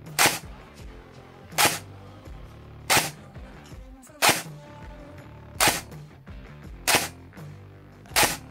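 Delta Armory Grand Power GR15 Freya airsoft electric rifle (AEG) firing single semi-auto shots, seven in all, about one every 1.3 seconds, as it is test-fired over a chronograph. Background music plays under the shots.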